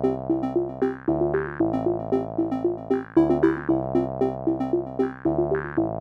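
Background music: a synthesizer tune with a quick repeating note pattern over a bass line that changes pitch every second or so.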